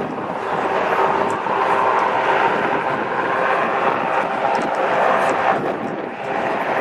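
Aircraft engine noise: a steady, loud drone passing over an outdoor crowd area.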